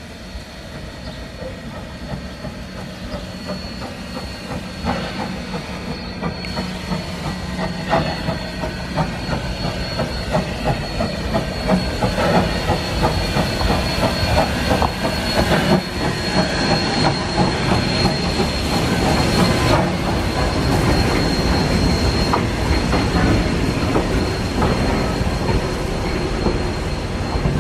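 Steam train drawing into a station and its carriages rolling slowly past close by: wheels knocking over the rail joints with a thin steady squeal, growing louder as the train nears.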